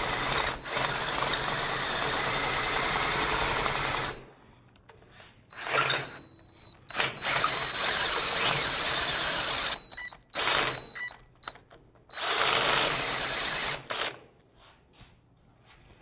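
Cordless drill driving a hole saw through a metal roll-cage tube, run in bursts: one long run of about three and a half seconds, then several shorter runs with pauses between, with a thin high whine as the saw cuts.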